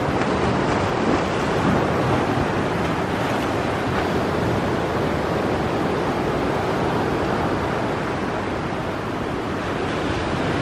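Steady rush of small waves washing onto a sandy beach, mixed with wind on the microphone.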